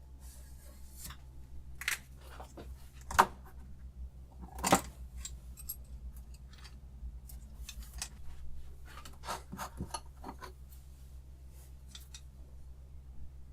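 Small metal parts of a knife sharpener clicking and clinking as they are handled, with a few sharper knocks and a low steady hum underneath.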